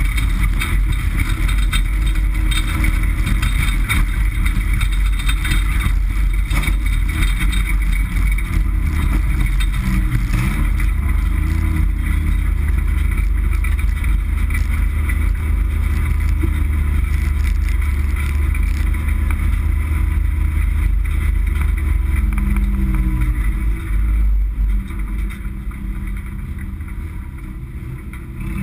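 Dirt-track race car engine running, heard from inside the stripped cockpit, loud and steady with a deep low drone. It goes quieter for the last few seconds as the car eases off in the pits.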